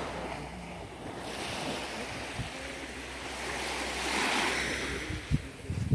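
Small Black Sea waves washing onto a sandy shore, the rush swelling and fading twice. Wind buffets the microphone with low thumps near the end.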